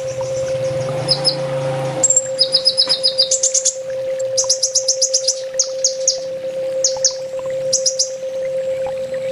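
Kolibri ninja sunbird singing: rapid runs of high, sharp chips and short trills, repeated in quick bursts, over a steady low hum.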